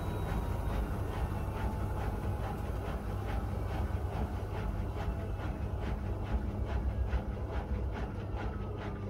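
Miele W1 washing machine running, with a steady motor hum under a rhythmic clicking about three times a second as the drum turns. Near the end a motor whine starts to fall in pitch.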